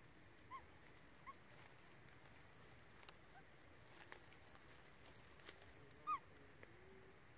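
Long-tailed macaque giving a few short, high, rising-and-falling squeaky calls, two faint ones in the first second or so and a louder one about six seconds in, over faint clicks and rustles of foraging in leaf litter.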